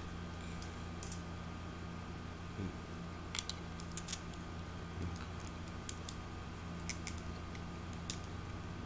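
Scattered sharp plastic clicks and small knocks of over-ear headphones being handled and put on, over a steady low electrical hum.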